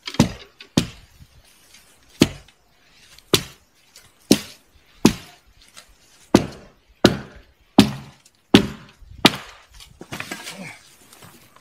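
Axe blows chopping branches off a felled tree: about eleven sharp single strikes, roughly one a second, then a stretch of rougher rustling noise near the end.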